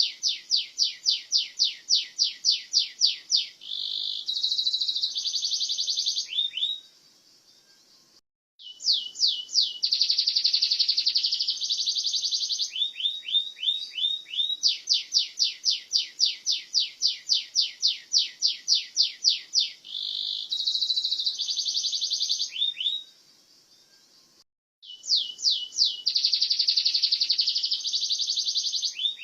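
Domestic canary singing a long rolling song: fast runs of repeated notes alternating with buzzy trills, high-pitched. The song stops twice for about a second and a half, and the same phrase sequence starts again after each pause.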